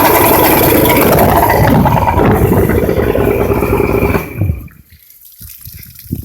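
Outboard motor running, with two cylinders that the owner finds reading low on the tachometer, then shut off about four seconds in. After that, water drips and trickles.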